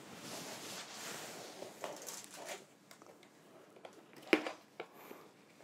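Soft rustling of clothing and handling around a child's high chair, then one light knock about four seconds in.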